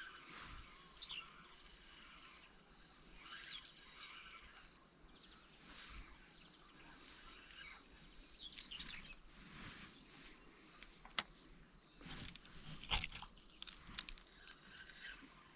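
Faint outdoor ambience with scattered short bird chirps over a thin steady high tone, broken by a sharp click about eleven seconds in and another short noise a couple of seconds later.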